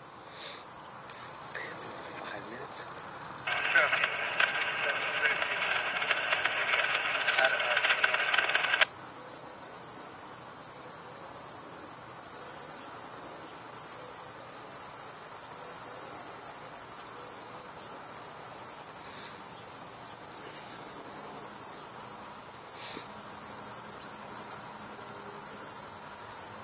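Steady high-pitched insect chorus, the continuous trill of crickets or cicadas in the trackside vegetation. About three and a half seconds in, a scratchy burst starts, lasts about five seconds and cuts off abruptly.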